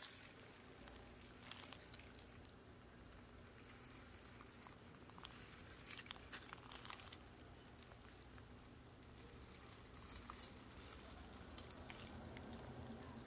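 Near silence, with faint scattered crackles and rustles of dry leaf litter.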